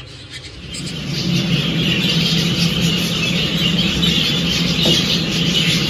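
Birdroom ambience: many budgerigars chattering and chirping over a steady low hum, coming in about a second in as a quiet music tail fades.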